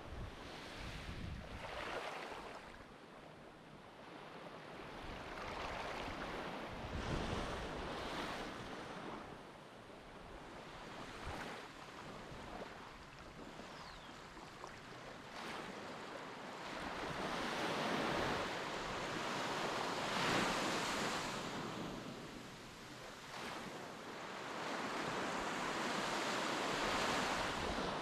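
Surf washing onto a beach in slow swells and ebbs of hissing water, with wind buffeting the microphone.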